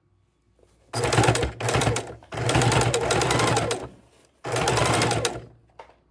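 Domestic sewing machine stitching in four short runs with brief stops between, the needle going fast, as the ends of a double-sided bias binding are stitched closed.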